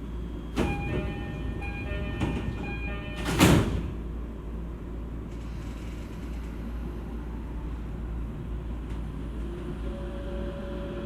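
Inside an E231-series commuter train at a station stop: the door-closing chime sounds while the sliding doors run shut, ending in a loud thud about three and a half seconds in. Near the end, a steady whine from the traction motor inverter comes in as the train starts to pull away.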